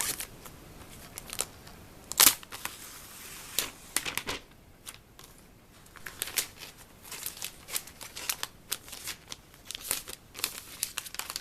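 Handling noise from unpacking and turning over a laptop: scattered clicks, taps and rustles, with one louder knock about two seconds in.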